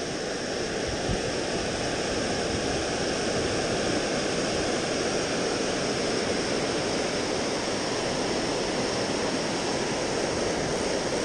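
Water rushing down a lake spillway and churning into the deeper water below, a steady, even rush.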